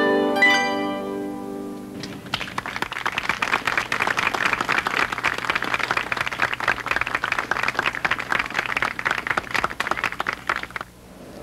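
The last notes of a many-stringed plucked instrument ring and fade away, then a crowd applauds for about eight seconds, cutting off suddenly near the end.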